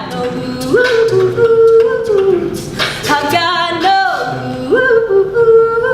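A cappella vocal group singing sustained notes without instruments. The voices jump up in pitch twice, about a second in and again near the end, and slide back down in between.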